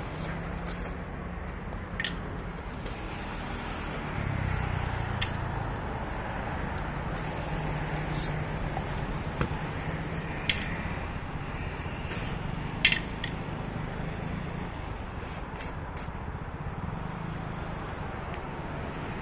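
Steady background rumble with a handful of sharp clicks and taps from hand tools being handled, the loudest about two-thirds of the way through.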